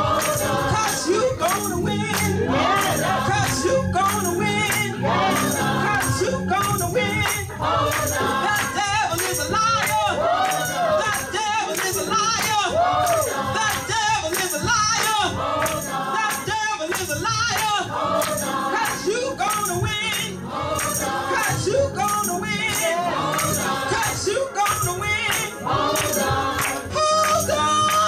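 Gospel music: choir voices singing with instrumental accompaniment and a steady beat of shaken percussion.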